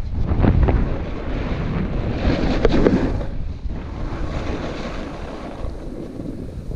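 Wind rushing over a GoPro's microphone while snowboarding, with a snowboard's edge scraping over groomed snow in two louder surges, about half a second in and again around two and a half seconds in.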